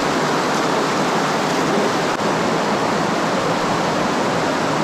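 Fast-flowing water rushing over rocks along a flooded mine level: a loud, steady rush.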